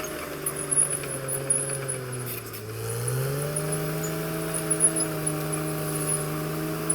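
Caterpillar D6R XL bulldozer's diesel engine running under load. Its pitch sags about two to three seconds in, then rises again and holds steady. Scattered clanks and rattles sound over the engine.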